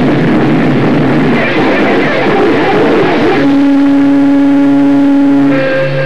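Live punk band's distorted electric guitars and bass in a noisy, chaotic passage. About three and a half seconds in it gives way to a single steady held note, which jumps to a higher held note near the end.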